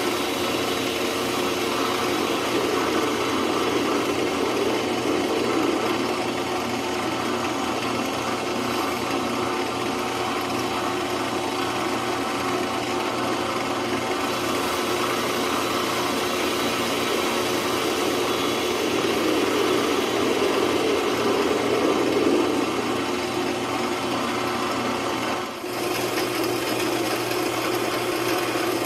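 Small metal lathe running with a turning tool cutting a hot-rolled 4140 steel pin: a steady motor and spindle hum with a scratchy cutting hiss over it. About 25 seconds in the sound dips briefly and then carries on with a slightly different tone.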